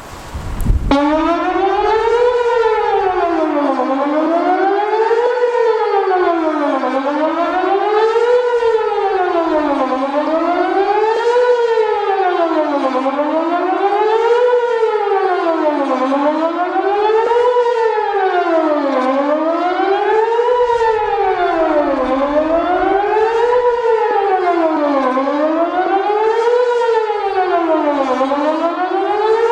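Whelen WPS 2810 electronic outdoor warning siren sounding its test tone. It starts abruptly about a second in, then rises and falls steadily in pitch about every three seconds.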